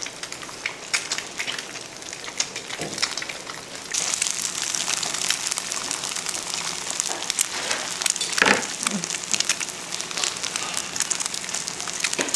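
Food sizzling and crackling in a hot pan, a dense hiss of fine pops that gets louder about four seconds in. A single short knock comes a little past the middle.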